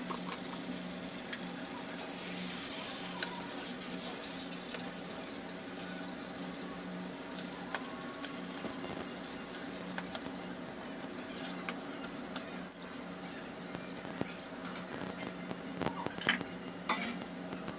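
Chicken curry sizzling in a nonstick pan while a spatula stirs it, scraping and knocking against the pan, with a few sharper knocks near the end. A steady low hum runs underneath.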